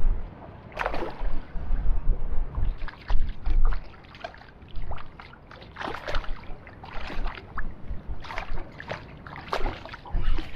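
Water slapping and splashing irregularly against a small boat's hull, with gusts of wind rumbling on the microphone.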